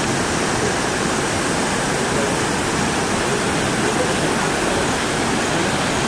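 Waterfall: water rushing steadily over rocks, loud and even throughout.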